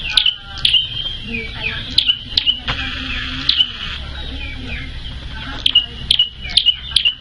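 Prenjak (prinia) calling: sharp, high chirps repeated in short runs, with a pause of a second or so near the middle.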